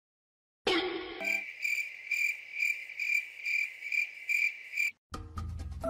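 Cricket chirping in an even, high-pitched pulse of about two chirps a second, after a brief pitched sound just under a second in; the chirping stops shortly before the end.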